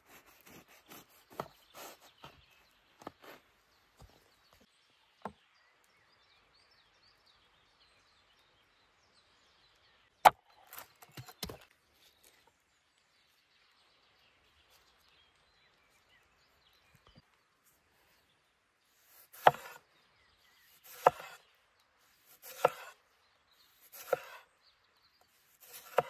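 A cleaver crunching through a toasted bun with a run of crackling cuts, then a single sharp knock about ten seconds in. Near the end, a cleaver slicing a tomato against a wooden cutting board: five knocks about a second and a half apart.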